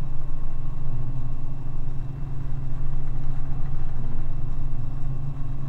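Robinson R44 helicopter's piston engine and rotors heard from inside the cabin: a steady low drone during low, level flight.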